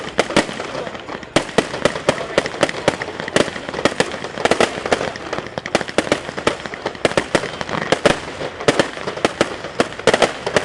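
Aerial fireworks bursting in a rapid, continuous run of sharp bangs and crackles, several a second.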